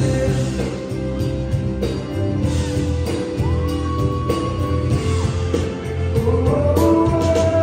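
Live pop band playing a ballad: a male lead singer on a microphone over keyboard, electric guitar and bass, with long held notes in the middle and again near the end.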